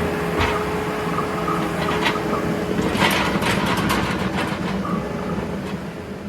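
Case 445 skid steer's diesel engine running, with a few sharp metallic knocks and clanks. The machine sound fades away near the end.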